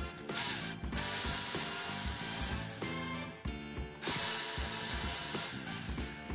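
Cordless electric ratchet running in three bursts, the last two about two seconds each, with a thin steady whine, as it turns bolts on a Honda CR-V rear differential housing. Background music plays underneath.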